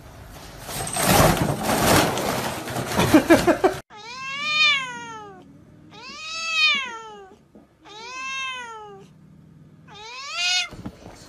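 A tabby cat meowing loudly at another cat: four drawn-out calls, each rising and then falling in pitch. They come after a loud stretch of noise that cuts off abruptly about four seconds in.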